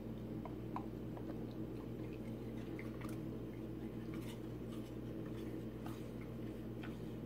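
Husky-type dog chewing pieces of fruit, a string of small wet crunches and clicks, over a steady low hum.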